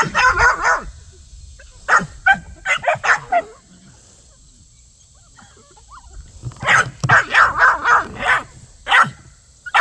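Dogs barking in quick runs of short, sharp barks, with a pause of about three seconds in the middle before a dense flurry of barks.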